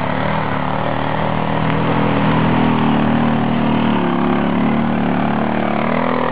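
ATV (quad bike) engine running steadily under load as the quad climbs a steep dirt slope, passing close by near the end.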